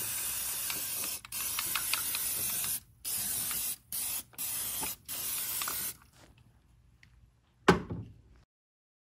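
Aerosol can spraying through a straw nozzle in five bursts of hiss with short pauses between them, then stopping. A single knock follows near the end.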